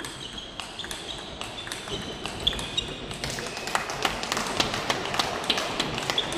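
Table tennis rally: the ball clicking sharply off the bats and the table in an irregular patter, the clicks coming thicker and louder about halfway through.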